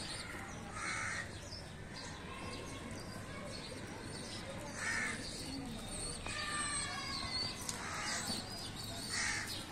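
A crow cawing four times, single harsh caws a few seconds apart.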